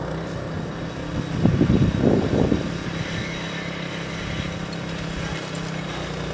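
Diesel engine of heavy rail-laying machinery running steadily, with a louder rough rumble for about a second a little over a second in.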